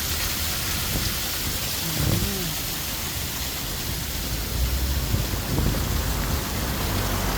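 Steady rushing water of a waterfall, with a low rumble underneath that grows stronger about halfway through.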